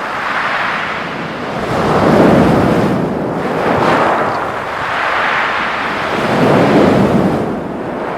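Waves breaking on a pebble beach, each surge swelling and ebbing as the water washes over and drags back through the stones. There are heavier breaks about two seconds in and again near the end.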